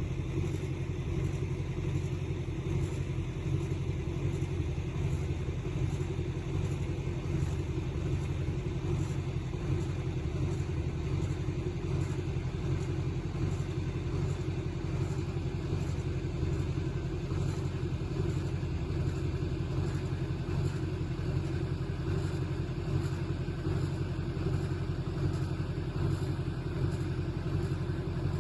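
A small engine running steadily at a constant speed throughout.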